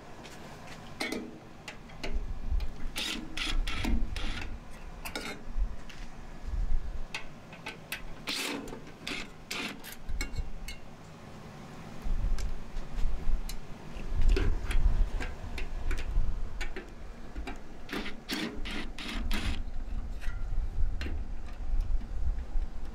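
Scattered clicks, clanks and rattles of hands and tools working on a microwave oven's sheet-metal casing, wiring and parts, with a low rumble at times.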